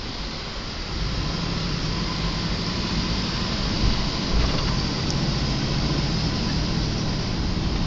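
A vehicle driving on a wet road, heard from inside the cabin: steady engine and tyre noise that grows louder about a second in as it picks up speed.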